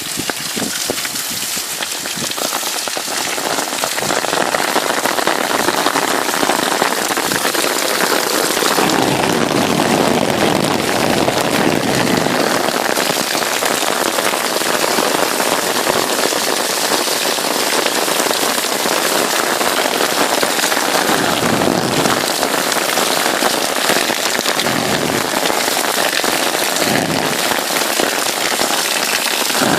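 Heavy rain pouring down and splashing on surfaces in a steady, dense hiss, building over the first few seconds and then holding.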